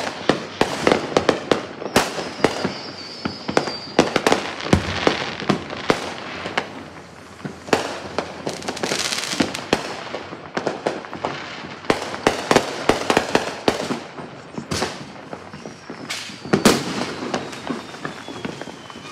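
Fireworks going off in a dense, irregular barrage of bangs and crackling pops. A high whistle sounds briefly about two seconds in, and a longer whistle falls in pitch over the last few seconds.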